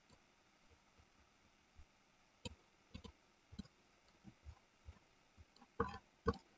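Computer mouse clicking: a scattering of faint, short clicks, with two louder ones near the end.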